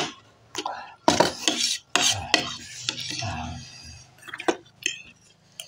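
Metal spoons clinking and scraping against stainless steel bowls and plates while eating, with a handful of sharp, separate clinks among softer scraping.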